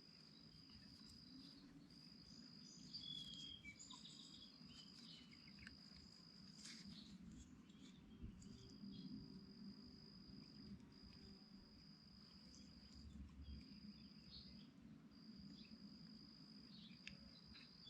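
Near silence, with faint insect trilling: one steady high note in runs of one to two seconds with short breaks between them.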